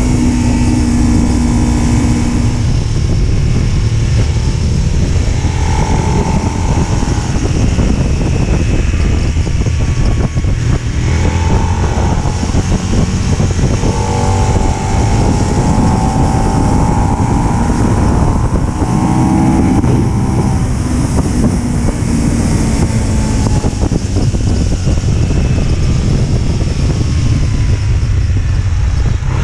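Motorcycle engine running hard at road speed, its pitch rising and falling as the throttle opens and closes through the gears, with wind rushing over the bike-mounted microphone.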